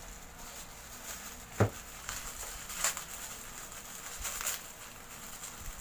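Hands handling the sealed plastic-wrapped parts of a cellphone stand: one sharp knock about one and a half seconds in, then a few lighter clicks and rustles.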